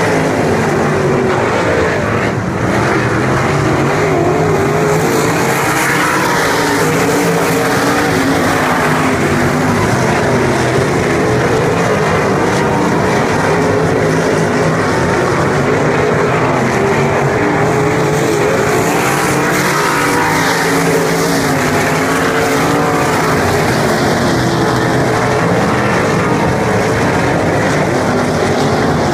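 A pack of dirt-track winged sprint cars racing together. Their engines make one continuous loud drone, made of several overlapping engine notes that rise and fall in pitch as the cars come through the turns and along the straight.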